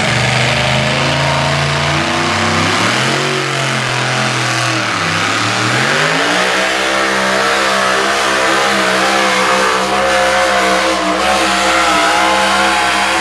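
Two-wheel-drive pulling truck's engine at full throttle, dragging a weight-transfer sled down the track. The revs sag about five seconds in, then climb back and hold high and steady. The sound cuts off suddenly at the end as the pass finishes.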